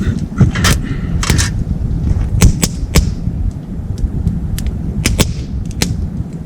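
Wood burning in a folding wood stove, crackling with irregular sharp pops, some close together and some spaced a second or more apart, over a steady low rumble.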